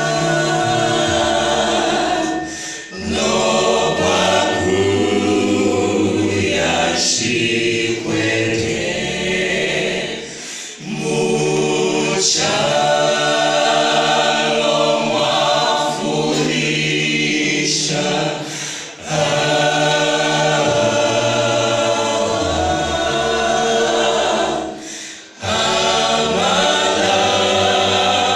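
A small vocal group singing a gospel song in harmony into handheld microphones, with held low notes under the melody. Brief pauses between phrases about every six to eight seconds.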